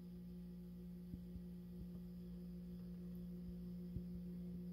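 Steady low electrical hum, mains-like, with a few faint clicks.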